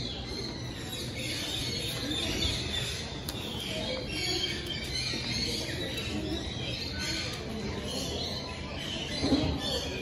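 Pet-shop ambience: caged parrots and parakeets chirping and squawking over background music and the murmur of people, with one short, louder sound about nine seconds in.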